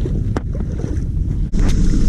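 Low engine rumble with wind buffeting the microphone, broken by a sudden cut about one and a half seconds in.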